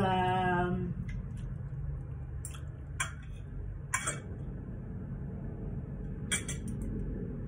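Metal fork and spoon clinking and scraping against ceramic plates while eating: a handful of sharp clinks spread out over a low steady hum. A short pitched tone sounds at the very start.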